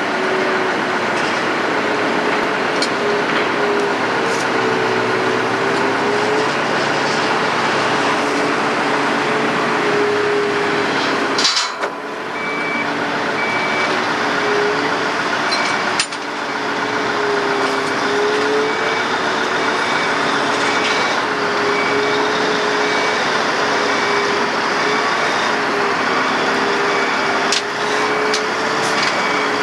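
Heavy diesel log-yard machinery running under load, its engine note rising and falling as it works. A backup alarm beeps repeatedly from a little under halfway in, and the sound drops out abruptly for a moment twice.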